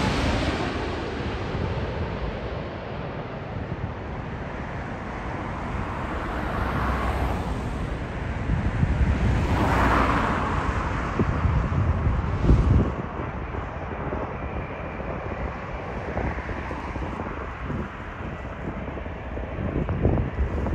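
Jet engines of a Boeing 787 airliner fading away after it passes low overhead on final approach, giving way to gusty wind buffeting the microphone. Around the middle, a distant jet rumble swells and dies away again, and there is a short knock of wind on the microphone a couple of seconds later.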